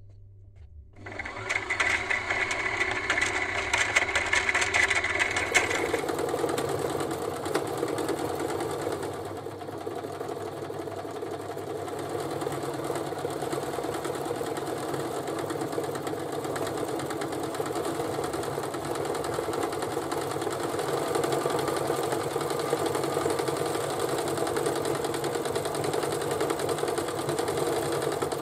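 Brother XL-4010 electric sewing machine running. It starts about a second in, changes its sound about six seconds in, then runs steadily while stitching rows of decorative zigzag and scallop stitches through cloth.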